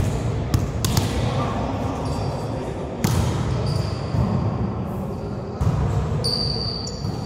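Volleyball being played in a reverberant gym: sharp slaps of hands hitting the ball a few times, and high sneaker squeaks on the court floor about halfway through and near the end, over background voices.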